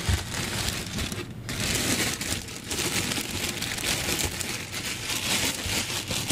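Plastic bread bag crinkling and rustling as it is handled and twisted closed, a continuous crackle of small irregular crinkles.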